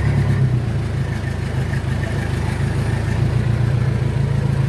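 JCB backhoe loader's diesel engine running steadily, heard from the operator's seat, with a slight shift in its low note just under a second in.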